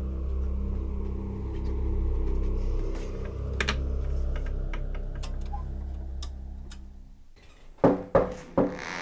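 A low, steady ominous drone with faint scattered clicks that cuts off, then three sharp knocks on a door in quick succession near the end.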